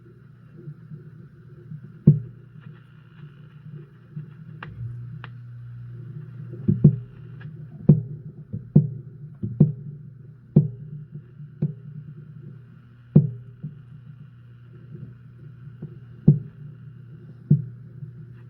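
Old tube AM radio's speaker coming to life with a steady low hum and faint hiss, broken by sharp crackling pops at irregular intervals about a second apart; the hum grows louder about five seconds in.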